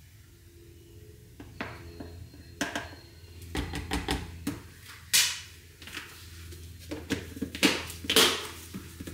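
Small plastic kitchen items being handled: a plastic spoon scooping powder from a plastic tub and tapping on a plastic measuring jug, with scattered clicks and knocks. A louder clatter comes near the end as the tub's lid is put back on.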